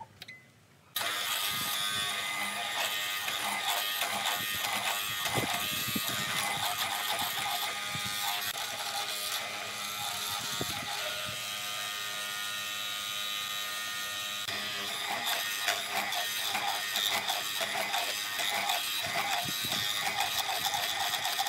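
A small electric power tool's motor running steadily, starting abruptly about a second in, with scattered clicks and knocks over it.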